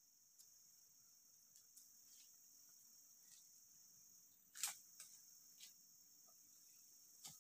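Steady high-pitched drone of insects in the forest, with scattered sharp snaps and crackles of twigs and dry leaves as someone moves through the undergrowth; the loudest snap comes about four and a half seconds in.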